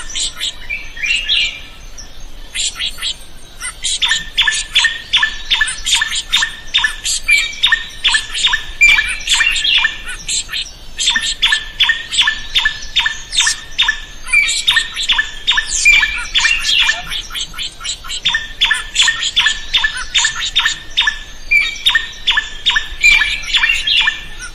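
A drongo calling vigorously: long, rapid series of harsh, repeated notes, about three or four a second, in runs broken by brief pauses.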